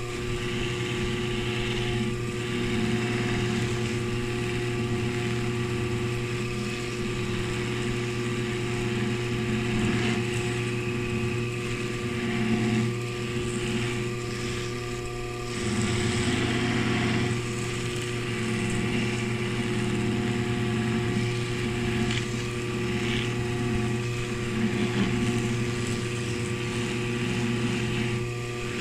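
Dental polishing lathe running, its cloth rag wheel spinning with a steady motor hum. An acrylic denture is pressed against the wheel with Spanish-white polish, and the hiss of the rubbing rises and falls with the pressure. This is the second, rag-wheel polishing stage of a relined lower denture.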